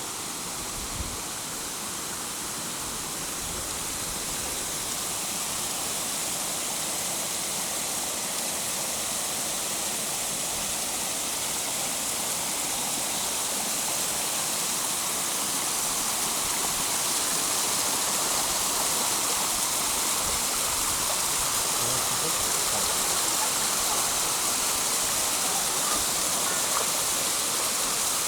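Steady rush of falling water from Titi Waterfall, growing gradually louder, with a single soft thump about a second in.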